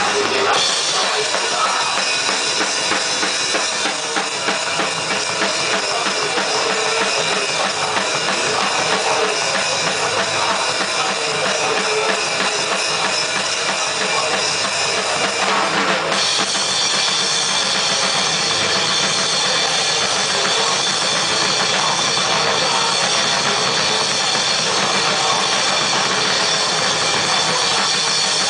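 Grindcore band playing live: loud, dense heavy music driven by a drum kit with pounding bass drum and snare, the sound shifting to a brighter, cymbal-heavy texture a little past halfway.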